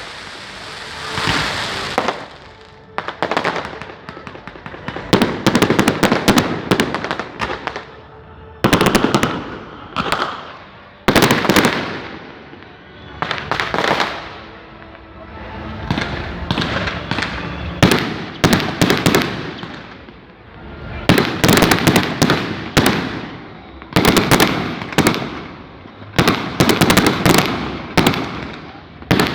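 Firecrackers going off in rapid clusters of sharp cracks and bangs, a fresh burst about every two seconds.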